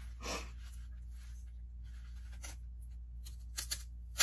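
Plastic Easter eggs clicking and knocking against each other and a bowl as a hand sorts through them: a few scattered light clicks, with a sharper click near the end.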